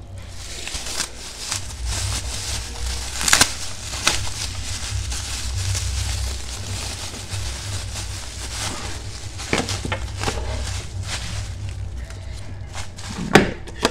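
Plastic bubble wrap crinkling and crackling as hands handle it and pull it apart, with a few sharper, louder crackles among the steady rustle.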